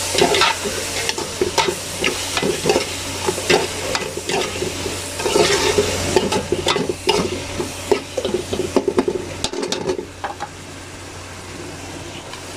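A metal spoon scraping and stirring onions, tomatoes and green chillies frying in oil in an aluminium pot, with a steady sizzle. The stirring strokes stop about ten seconds in, leaving the quieter sizzle of the onion-tomato base cooking.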